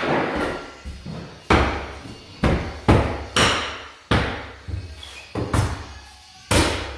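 Mallet strikes on a pneumatic flooring nailer driving fasteners into hardwood flooring planks: about seven sharp, loud blows at an uneven pace, each trailing off briefly.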